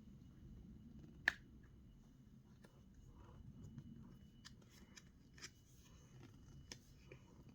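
Box packaging being handled by hand: faint rustling and scattered small clicks, with one sharp click about a second in.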